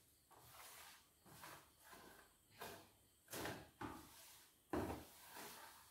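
A cloth wiping the inside of a plastic tub: a handful of faint, short rubbing strokes, most of them in the second half.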